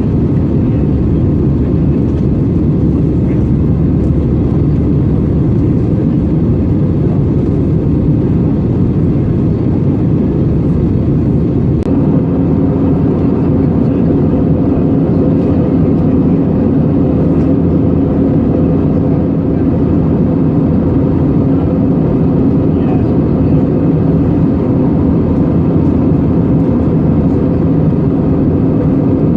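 Steady cabin noise of an Airbus A320 in flight: engine and airflow noise with a low hum. About twelve seconds in, a steady hum a little higher in pitch comes in and holds.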